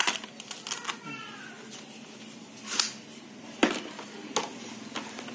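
Plastic clicks and knocks from a GM Bear flat mop's frame and pad being handled, with a short scraping rasp about three seconds in and a sharp click just after it.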